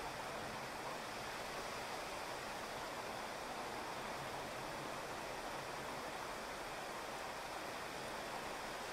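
Heavy rain falling steadily on a wet asphalt street and grass: an even hiss.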